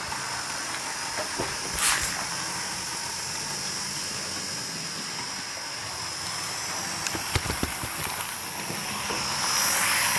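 Hornby Thomas OO-gauge model locomotive's small electric motor whirring as it pulls two coaches round the track, with a few light clicks of the wheels over the rails, growing louder near the end as it comes up close.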